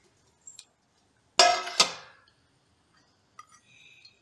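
Stainless steel kitchen vessels clanking together: two ringing metal clanks in quick succession about a second and a half in, fading out, with a few light clinks before and after.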